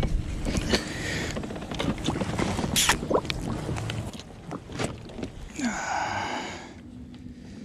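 Fishing gear knocking and clicking against a plastic fishing kayak as the rod and landing net are handled, with a short breathy hiss about six seconds in.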